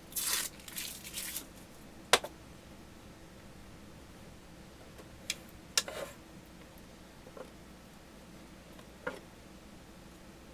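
Protective plastic film rustling as it is peeled off the back of a monitor. A few scattered sharp clicks and taps follow as the monitor is handled.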